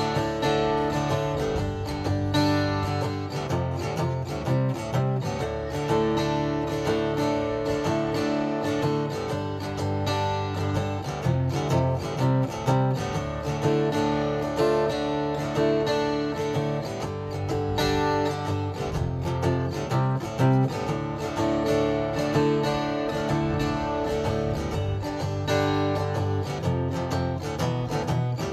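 Acoustic guitar strummed in a steady rhythm during an instrumental break of a live song, with no vocals.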